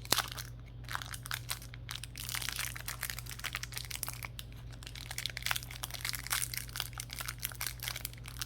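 Plastic packaging crinkling, with many small irregular clicks and crackles as hands handle a camera remote's batteries and parts, over a steady low hum.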